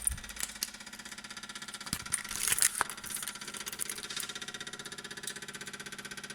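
BMW 335i making a rapid, even ticking buzz after the engine is shut off, the weird noise its owner is recording. A louder clatter comes in about two to three seconds in.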